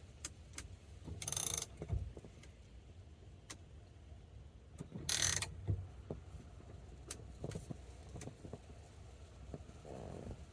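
Steering wheel puller's centre bolt being tightened with a ratchet wrench: two short bursts of ratcheting, about a second in and about five seconds in, with scattered light clicks of metal tools between.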